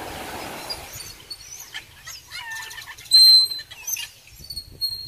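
Parrots calling from the palm trees: many short chirps and squawks, with one loud, harsh screech about three seconds in. A soft rushing noise runs through the first second.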